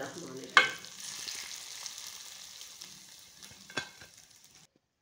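Hot desi ghee tadka with cumin seeds and dried red chillies poured onto cooked mash daal: a sharp sizzle about half a second in that slowly fades, with one light knock near the end, then cuts off suddenly.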